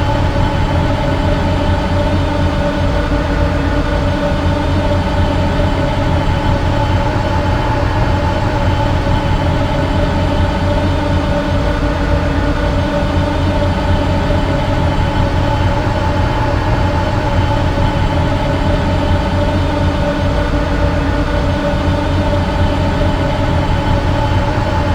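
TIE Silencer starfighter exterior engine sound effect: a steady, unchanging drone with several held tones over a deep rumble and hiss, made to loop.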